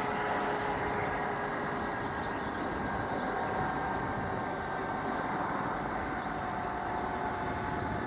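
Bell 214B helicopter's turboshaft engine running steadily at idle on the pad after landing, with its two-blade main rotor turning. A steady turbine whine of several held tones sits over a constant rushing rotor and engine noise.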